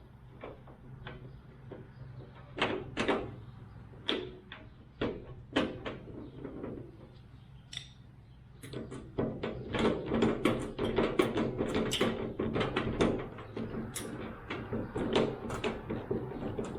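Sharp clicks and knocks of a screw and hand tool being worked against a gas grill's cabinet door while the door handle is screwed on. About nine seconds in, a denser run of rapid clicking and rattling starts as the screw is tightened.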